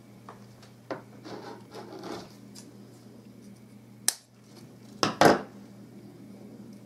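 Large scissors snipping: one sharp snip about four seconds in and two louder snips about a second later. Before them, rustling of moss and conifer sprigs being handled.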